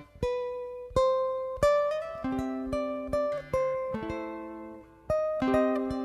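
Background music: a slow melody of single plucked notes on a stringed instrument, each note starting sharply and ringing away.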